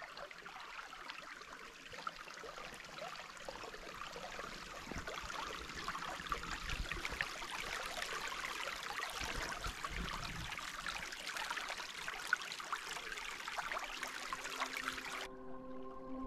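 Running creek water: a steady rush with fine splashing flicker. It cuts off sharply near the end, where background music comes in.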